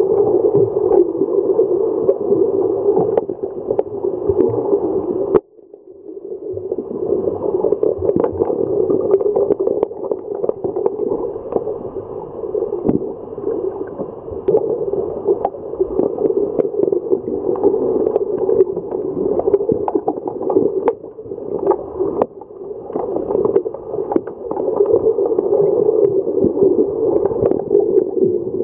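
Muffled underwater din of a swimming pool during an underwater hockey game, heard through a submerged camera: a steady dull rushing from swimmers, fins and bubbles, with many scattered sharp clicks and knocks. It cuts out abruptly about five seconds in and swells back over the next second or two.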